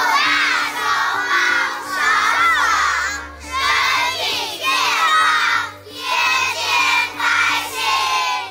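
A large group of young children shouting good wishes together in unison, in short phrases about a second apart, over soft background music.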